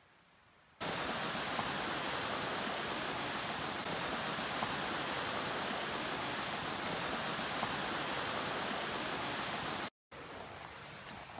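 Rushing creek water, a steady loud hiss that starts abruptly about a second in, breaks off for a moment near the end and comes back fainter.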